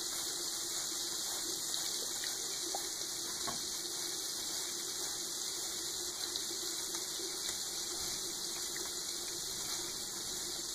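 Steady rushing of water.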